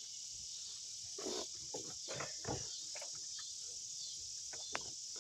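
Crickets chirring steadily and high-pitched, with a few faint knocks and rubbing sounds as a rubber radiator hose is worked onto its outlet.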